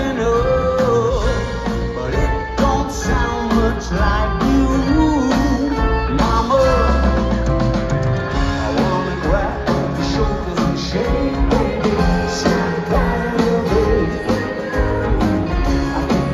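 Live rock band performing with a male lead vocalist singing over electric guitars, bass, drums and keyboards, heard from the audience through a phone's microphone.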